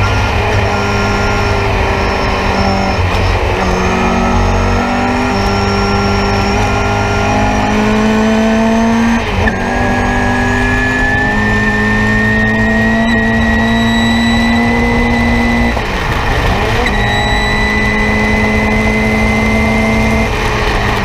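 Nissan Sentra race car's four-cylinder engine, heard from inside the cockpit, running hard under load with its pitch climbing slowly. It breaks briefly about nine and sixteen seconds in and falls away at the very end.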